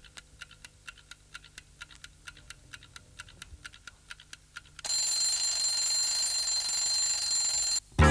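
A clock ticking about four times a second. About five seconds in, an alarm clock starts ringing loud and steady, then cuts off suddenly just before the music begins.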